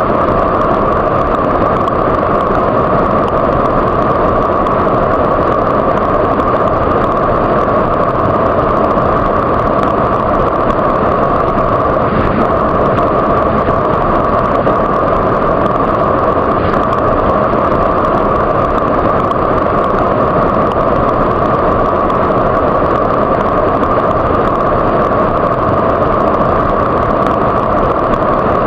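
Waterfall: a steady, loud rush of falling water with no change or pause.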